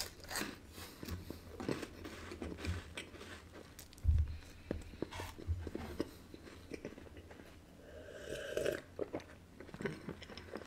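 A person biting and chewing a crisp wafer, with a fine crackling crunch throughout. There is a dull low thump about four seconds in.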